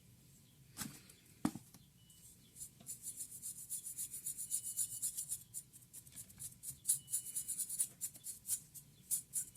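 Two light knocks, then quick, repeated scrubbing or rubbing strokes on laptop parts during cleaning, starting about three seconds in and carrying on.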